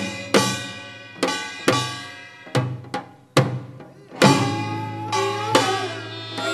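Korean traditional dance music: loud percussion strokes, some in pairs, about once a second, each ringing out. About four seconds in, a held low tone and a wavering melody line come in under the strokes.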